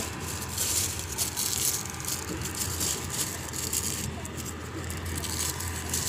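Thin plastic carrier bag rustling and crinkling as a hand rummages through it.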